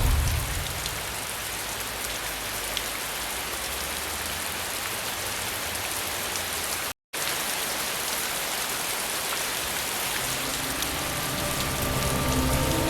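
Steady rain falling, with the tail of a thunderclap dying away in the first second. The sound cuts out completely for a split second about seven seconds in. Near the end, sustained keyboard notes of the song's intro come in under the rain.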